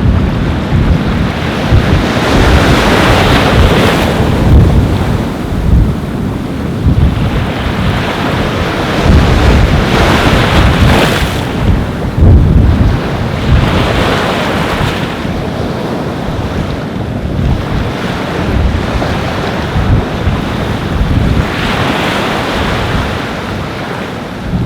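Ocean waves breaking and washing onto a beach, the surf swelling and falling every few seconds, with heavy wind buffeting the microphone in a constant low rumble.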